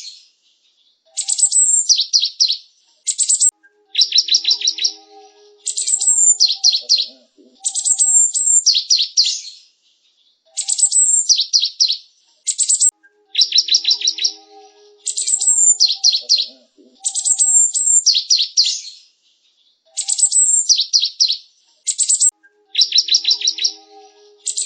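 Cinereous tit (gelatik batu) singing: loud, high-pitched phrases of quick repeated notes, each a couple of seconds long with short pauses between.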